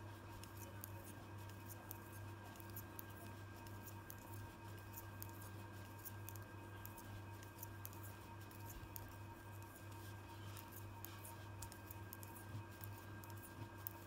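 Metal knitting needles clicking faintly and irregularly as stitches are knitted by hand in wool, over a steady low hum.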